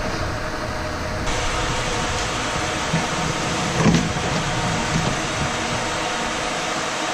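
A steady mechanical whir with a faint hum, with a short louder knock about four seconds in.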